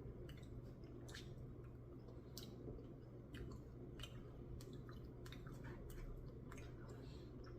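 Faint chewing and soft mouth clicks of a person eating soft, melting Blizzard ice cream with peanut butter cup pieces, the small clicks coming irregularly, over a low steady hum.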